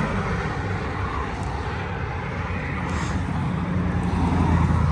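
A motor's low, steady rumble, growing louder about four seconds in.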